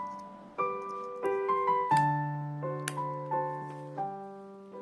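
Background piano music: single notes struck one after another, each ringing and fading, about two a second.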